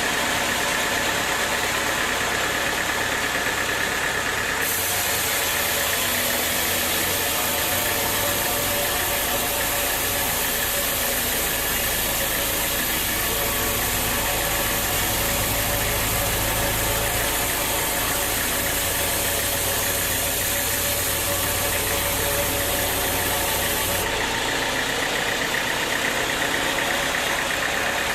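Sawmill machinery running steadily with an engine-like drone. From about five seconds in until near the end, a higher hiss and a deeper rumble join it, then drop away.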